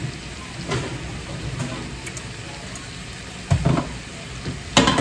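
Shrimp sizzling steadily in a stainless steel sauté pan on a gas burner. Metal clunks about three and a half seconds in, and a louder clank near the end, as a baking sheet of broiled eggplant is taken from the oven.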